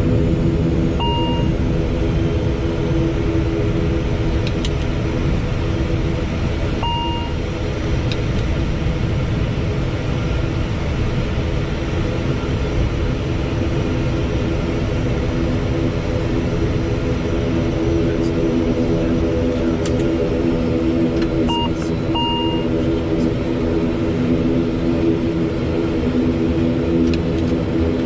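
ATR72-600's turboprop engines and propellers running steadily at low taxi power, a steady droning hum heard inside the cockpit. Short electronic beeps sound about a second in, again around seven seconds, and twice near twenty-two seconds.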